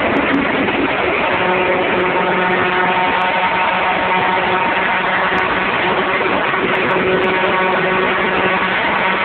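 Honda Civic EG6's swapped K20A 2.0-litre four-cylinder engine pulling at steady high revs at highway speed, heard inside the cabin under loud wind and road noise. The engine note holds one pitch throughout.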